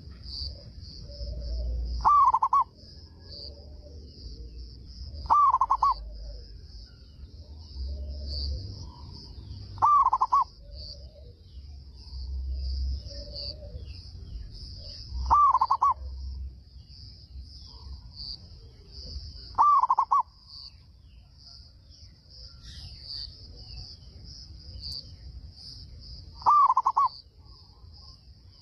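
Zebra dove (perkutut) cooing: six short, loud bursts of song a few seconds apart, over a steady high-pitched buzz.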